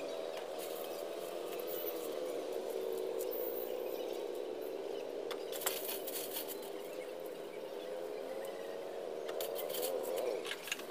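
Faint crisp crackling and rustling of puffed rice and sticky jaggery being pressed into balls by hand, over a steady, slowly wavering hum.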